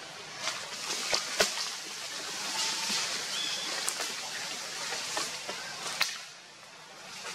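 Outdoor ambient noise: a steady hiss with faint rustling and a few sharp clicks.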